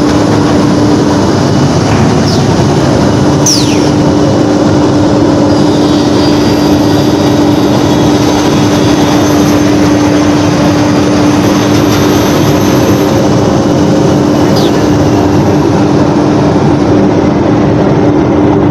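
Plywood double sizer trimming machine running at a constant loud level: saw motors, conveyors and dust extraction make a steady drone with a constant hum, and a couple of short high whines fall in pitch along the way.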